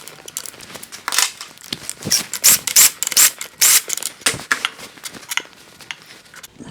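Hand ratchet clicking in quick irregular bursts, with metal tapping and clinking, as the kingpin cap bolts on a Dana 30 steering knuckle are backed out to remove a shim.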